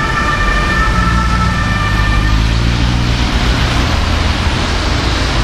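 German ambulance two-tone siren (Martinshorn) sounding, fading out about two seconds in, over steady city traffic noise with a low engine rumble.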